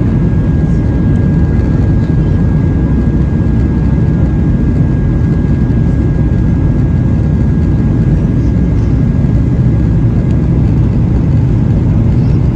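Boeing 737-800's CFM56-7B jets and airflow heard from inside the passenger cabin: a loud, steady low rumble. A thin steady whine rides on top and fades out near the end.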